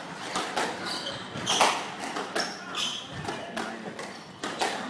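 Squash being played: irregular sharp hits of ball and racquet ringing off the court walls, with a few short high squeaks and shuffling footwork in the reverberant court.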